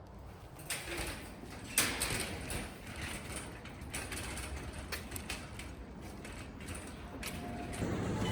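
Mechanical clicks and knocks at an irregular pace over a steady low rumble, growing louder toward the end.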